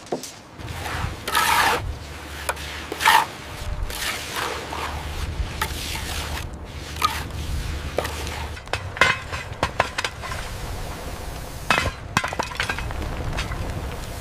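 Construction-site work sounds: irregular knocks, scrapes and clinks of tools on timber and concrete over a low rumble.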